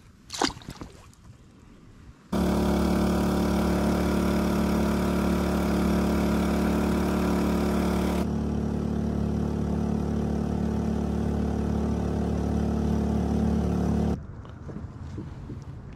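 Honda BF2D 2 hp four-stroke outboard motor running steadily under way. It starts abruptly about two seconds in and cuts off about two seconds before the end.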